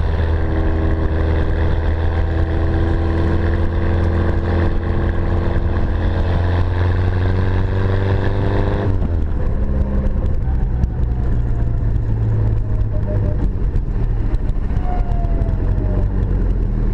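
Mosquito three-wheeler's Mini 1275 cc A-series engine running on its first run after a complete restoration. It is held at a raised idle with the revs slowly creeping up, then drops abruptly to a lower idle about nine seconds in.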